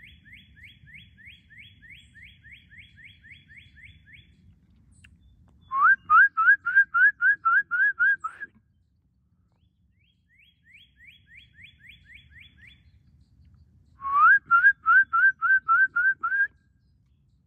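Northern cardinal singing loudly: two phrases of rapid rising whistles, each about two and a half seconds long, with fainter runs of quick falling notes before and between them.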